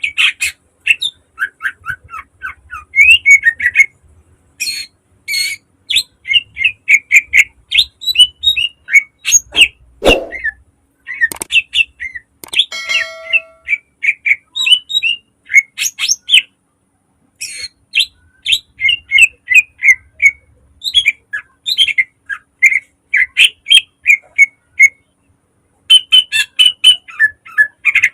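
Cucak ijo (green leafbird) singing loudly in rapid, tightly packed runs of sharp chirping notes, broken by short pauses. About ten seconds in there is a single low thump, and a little later a short whistled tone.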